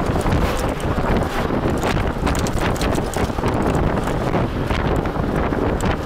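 Wind and road noise from a moving vehicle, with many irregular rattling clicks.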